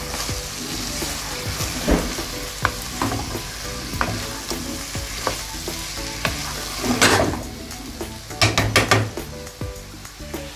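Wooden spatula stirring sweet-pumpkin bhaji and fried prawns in a sizzling nonstick frying pan, with scattered taps and scrapes against the pan. There is a louder flurry of scraping about seven seconds in and another a little before nine seconds.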